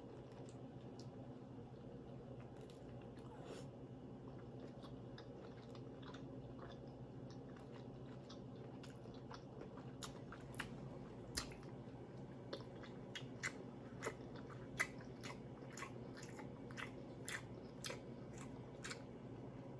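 Close-miked chewing and wet lip-smacking of a person eating sauce-coated lobster tail. Faint at first, then sharp mouth clicks and smacks come several times a second from about halfway through.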